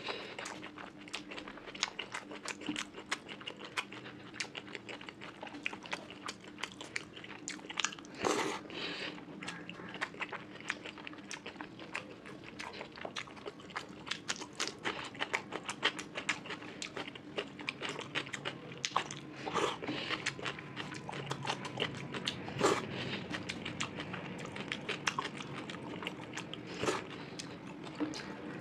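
Close-miked eating of fish curry with rice: rapid wet chewing and lip-smacking clicks, with a few louder crunchy bites.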